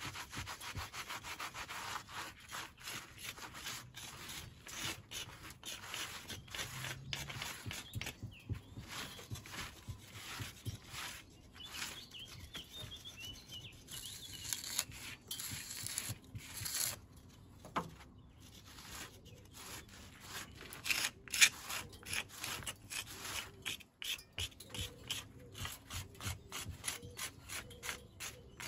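Hand tools scraping and rubbing at the mortar joints between the stones of a rubble stone wall, in quick repeated scratchy strokes with short pauses. One sharp tap about three-quarters of the way through.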